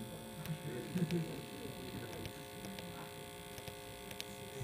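Small 5 V brushed DC motor running steadily, a continuous electric hum made of several steady tones.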